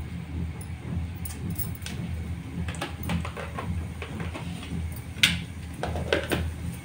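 Mustard seeds and urad dal frying in hot oil in an aluminium pressure cooker, the mustard seeds beginning to pop: scattered sharp pops from about three seconds in, getting more frequent, with one loud pop about five seconds in. A steady low hum runs underneath.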